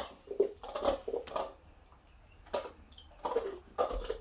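A dog gnawing and knocking a capped plastic container about to get the treats out: irregular crackles and knocks of plastic.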